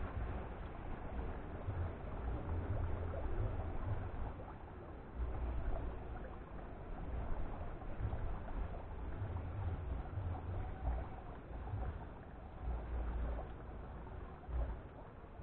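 Outdoor wind buffeting the microphone in uneven gusts over a steady trickling, gurgling water sound from the pond.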